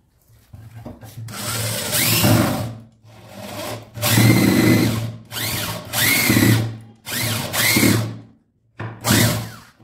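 Corded electric drill fixing a metal drawer slide to a plywood cabinet side, run in about five short bursts. Its whine rises and falls with each squeeze of the trigger.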